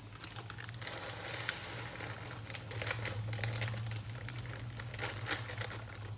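Plastic bag of frozen riced cauliflower crinkling as it is handled and shaken out into a frying pan, with scattered small rustles and ticks over a steady low hum.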